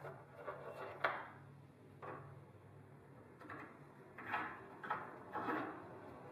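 Small metal parts being handled on a wooden runner: a threaded steel rod set into a hex-shaped hole and a nut and washer fitted onto it. There is a sharp click about a second in, then several short scrapes and rattles near the end.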